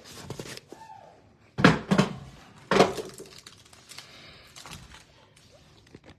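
Trading card packs and cards being handled at close range: two short bursts of rustling and knocking about one and a half and three seconds in, with a few lighter clicks between.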